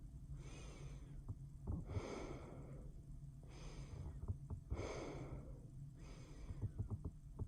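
Close-miked human breathing: a series of slow, soft breaths, about one every one and a half seconds, with small clicks between them. A steady low hum from a humidifier runs underneath.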